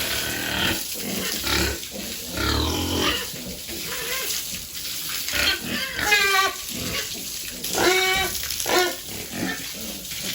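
Piglets squealing and grunting, with two long, high-pitched squeals about six and eight seconds in.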